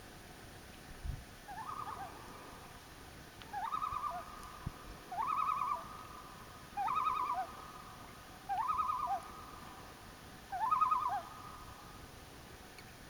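Common loon calling: six quavering, warbling phrases in a row, each rising into a rapid wavering note and dropping to a short lower note, repeated about every second and a half to two seconds.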